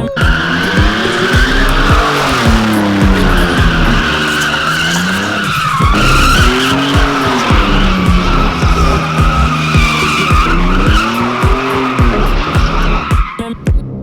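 Truck doing donuts: its tires squeal in a continuous screech while the engine revs up and falls back again several times.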